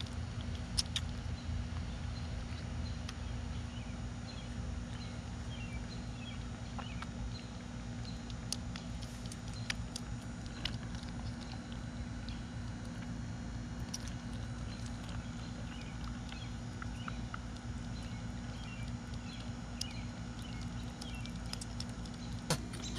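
Newborn goat kids sucking milk from feeding bottles: scattered soft wet clicks and smacks of suckling, over a steady low hum.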